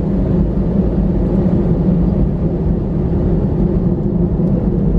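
Steady low rumble inside the cabin of an Airbus A320-214 taxiing, its CFM56 engines at idle thrust, heard from a window seat beside the wing.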